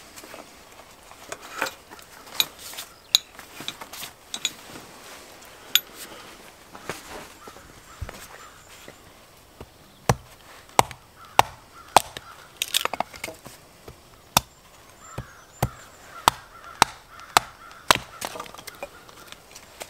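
Hatchet chopping into an upright stick of wood braced on a chopping block: sharp knocks about two a second through the second half. Before that come scattered clicks and knocks of gear being handled.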